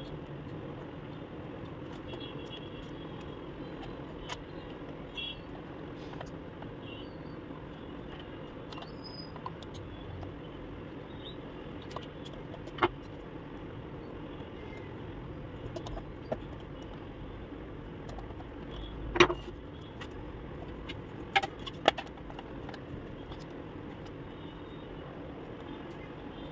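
Scattered small clicks and knocks of the plastic ink tank unit and its ink tubes being handled, the loudest about 19 seconds in, over a steady low background noise.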